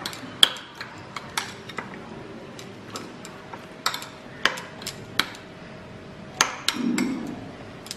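A metal spoon stirring a wet chicken filling in a glass bowl, with irregular clinks and taps of the spoon against the glass.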